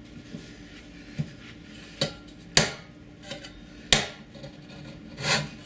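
Steel deer horn knife (yuet) hook striking and piercing a tin soup can on a table: a few metallic knocks and clanks, the two sharpest about two and a half and four seconds in.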